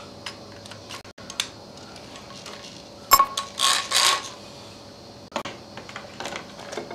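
Metal clinks and knocks as a drill, an oil pump and its welded aluminium drive jig are handled and set into a plastic bucket, with one louder clank about three seconds in that rings on for about a second.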